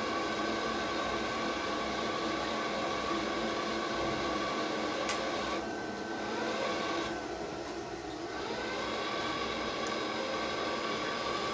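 Wire-feed motor of a Redbo MIG-120 multiprocess welder running steadily with a whine while the torch trigger is held, pulling 1.0 mm flux-core wire through the liner toward the torch tip. Just after a click about halfway, it drops away for a few seconds, then rises back to speed, with another click near the end.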